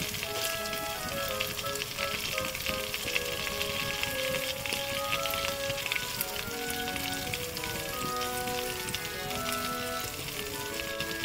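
Battered fish pieces deep-frying in hot oil in a wok, a steady crackling sizzle with scattered pops, as a wire-mesh skimmer and chopsticks move the pieces about. Light background music plays a simple tune underneath.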